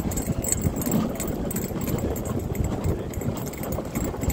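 Dog sled running over packed snow behind a four-dog team: a steady rumbling scrape from the sled moving along the trail, broken by many quick, irregular knocks.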